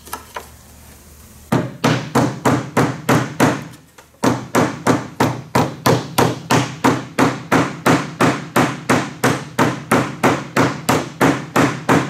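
Rubber mallet striking the top board of a wooden beehive box, driving its dovetail joints home. There is a quick run of blows about a second and a half in, a brief pause, then steady blows about three or four a second. The blows work evenly along the board rather than driving one end down first, so the board does not split.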